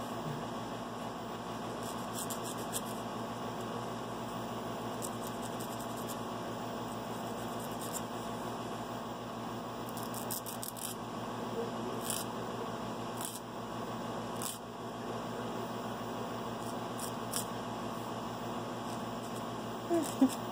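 Nail file scraping across a toenail in short, scattered strokes, over a steady background hum.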